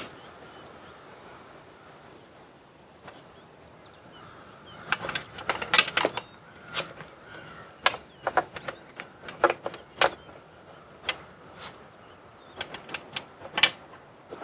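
Irregular sharp clicks and knocks of hands handling the fittings of a dry bag strapped to a motorcycle's rear rack, starting after a few quiet seconds and coming in quick clusters.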